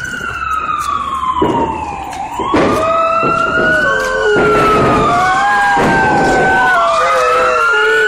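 Loud emergency vehicle siren wailing in long rising and falling sweeps, with a dog howling along from about two and a half seconds in.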